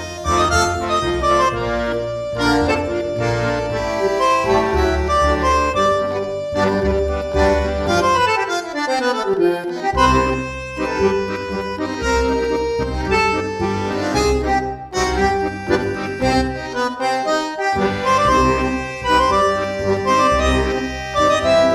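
Dance music led by an accordion-like melody over a pulsing bass beat, with a falling run about eight seconds in.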